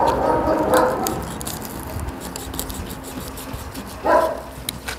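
Utility knife blade cutting and scraping through the hard tip of a goose-feather badminton shuttlecock, a run of short sharp clicks as the blade works. A brief high whine sounds near the start and again about four seconds in.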